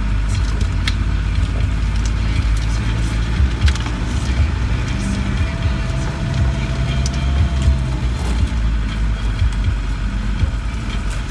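Steady low drone of a 4x4's engine heard from inside the cabin as it crawls along a rough track. Scattered clicks and scrapes, fitting branches brushing the bodywork and windscreen, run through it.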